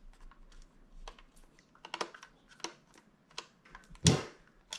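Small scattered clicks and ticks of a Phillips screwdriver working the screws out of a Dyson V8 vacuum's plastic battery pack, with one louder knock about four seconds in.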